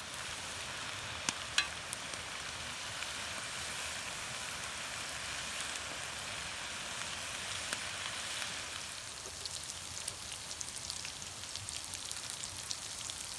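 Food sizzling in a frying pan: a steady hiss with a couple of sharp pops about a second and a half in, easing off after about nine seconds.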